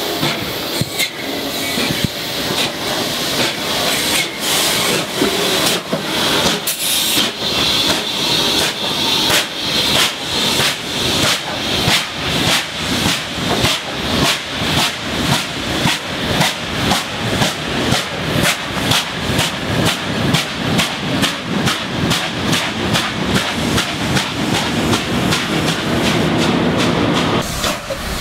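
NSW C38-class steam locomotive 3801 and its train passing close, with a steady hiss of steam and then a rhythmic clatter of wheels over rail joints, two to three clicks a second, that grows more regular as the carriages roll by.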